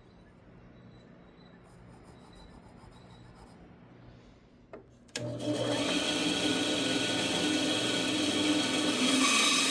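A low background for about five seconds, then a click, and a wood lathe's electric motor switches on and runs steadily at speed.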